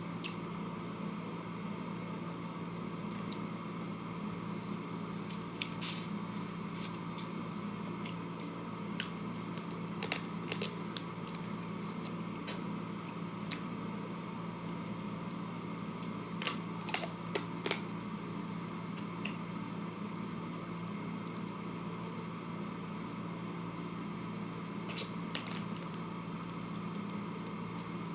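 Eating sounds: scattered short wet clicks and smacks of chewing, in clusters around 10 and 17 seconds in, over a steady background hum.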